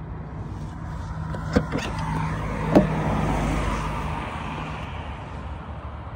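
A car tailgate being opened: two sharp latch clicks a little over a second apart, the second louder. Meanwhile a passing car's noise swells and fades over a few seconds.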